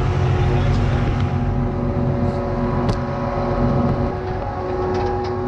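An engine running steadily at idle: a constant low drone with a few even tones above it.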